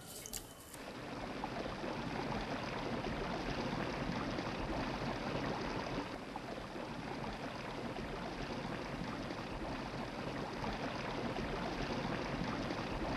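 Steady rushing of water, starting about a second in and running on evenly.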